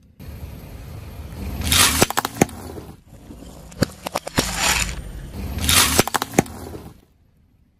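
Car tyre rolling over a plate heaped with M&M candies, crushing them: two rounds of crunching, each with several sharp cracks as the candy shells and the plate beneath break. It goes quiet about a second before the end.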